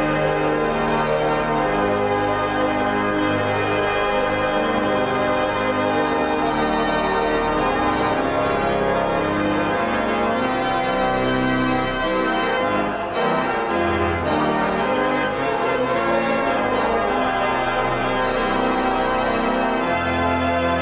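Organ music: full, sustained chords over held bass notes that change every second or two.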